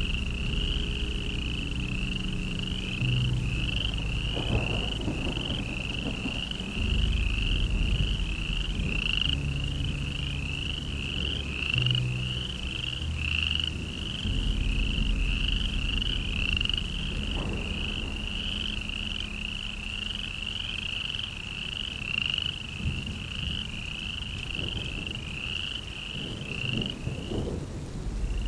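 A steady run of short, high-pitched chirping calls, about two a second, like a night chorus of frogs, over a low drone that shifts pitch every few seconds.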